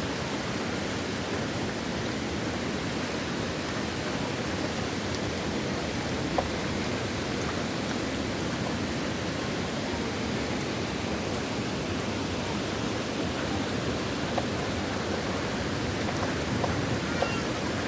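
Steady rain falling, with a few sharp drop hits standing out, one about six seconds in and several near the end.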